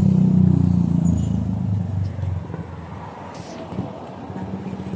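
A motor vehicle's engine passing close by on a city street, loud at first and fading away over about two seconds, leaving quieter traffic noise.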